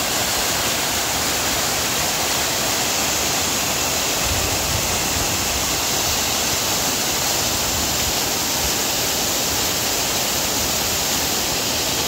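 Small waterfall pouring into a pool: a steady, unbroken rush of splashing water.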